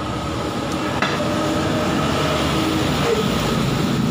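Steady low rumble of a heavy vehicle running on the street outside, growing slightly louder, with a single knock about a second in.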